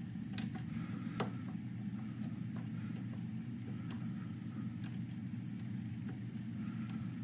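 A handful of scattered metallic clicks from a pick and tension wrench working the pins of a dimple lock cylinder, over a steady low hum.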